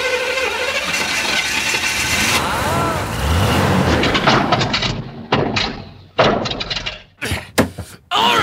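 Demolition derby cars: engines revving, then a run of sharp crash impacts of metal and breaking glass, with voices in the background, cut together in short clips.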